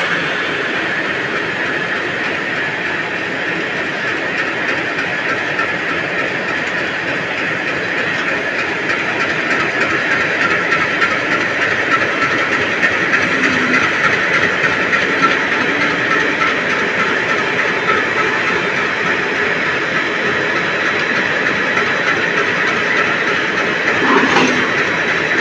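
WDG3A diesel locomotive, with its 16-cylinder ALCo 251 engine, running steadily as it creeps up to the coaches to couple. One short clank near the end.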